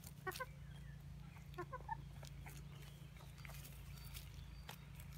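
Booted bantam hens (Sabelpoots) clucking softly in two short runs, about half a second in and again about two seconds in. Faint scratching and rustling come from them dustbathing in the dry dirt.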